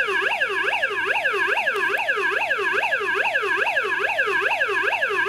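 Battery-powered electronic siren of a Hess toy fire truck, set to its second siren sound: a fast yelp whose pitch dips and rises about four times a second, steady and unbroken.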